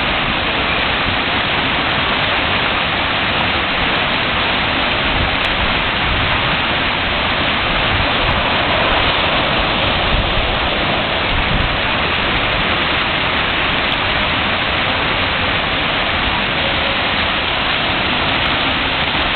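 Steady splashing of water from the spray jets and spouts of a children's water play structure, with streams pouring down onto it.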